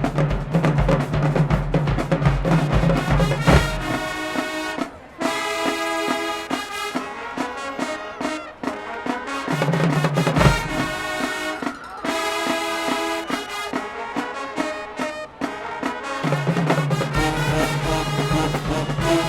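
High school marching band playing: the brass section sounds full, loud chords with short stops between phrases, over drums and a heavy low-brass bass line that drops out after a few seconds and comes back near the end.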